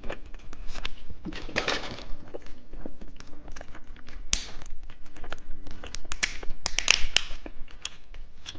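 Close-up chewing of a soft, juice-filled strawberry gummy candy: a dense run of sticky, wet mouth clicks and smacks.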